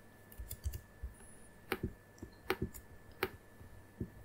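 Computer keyboard keystrokes and mouse clicks: about seven separate sharp clicks, some lighter and some louder, spread over four seconds, with a faint steady high-pitched tone underneath.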